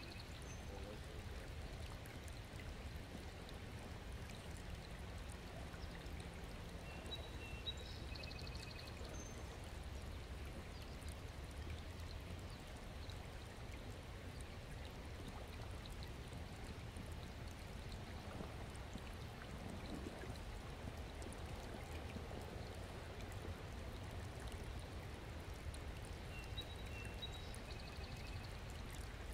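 Small stream of water running and trickling steadily over stones as it refills, its flow returning after a blockage upstream was cleared.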